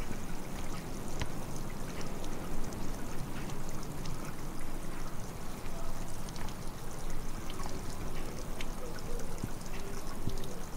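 Steady rush of running water, with scattered faint clicks.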